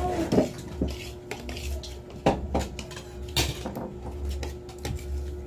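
Spoons and forks clinking and scraping against plates and bowls while people eat, in scattered light knocks with a few sharper clinks.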